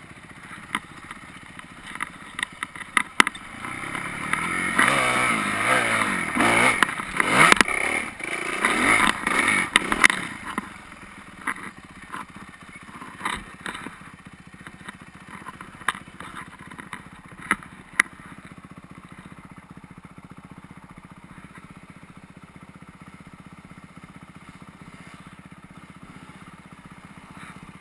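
Dirt bike engine revving hard for several seconds with its pitch sweeping up and down, mixed with sharp clattering knocks from the bike bouncing over rough ground. After that come scattered knocks, then a low steady running sound near the end.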